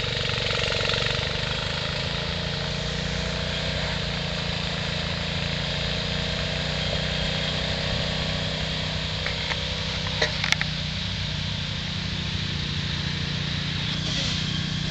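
Riding lawn mower engine running steadily, with a fainter engine note that rises and falls in the first few seconds. A few sharp clicks about ten seconds in.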